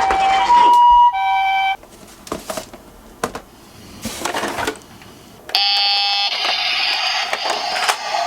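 Electronic high-low two-tone siren of a toy ambulance. It stops about a second in, on a short held note. Light plastic clicks and rattles follow, and then, about five and a half seconds in, another loud electronic tone from the toy's sound gimmick starts and turns to a buzzy electronic sound.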